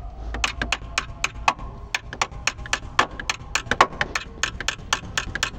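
Sharp metallic clicks from a hand wrench working a bolt, several a second in an uneven rhythm.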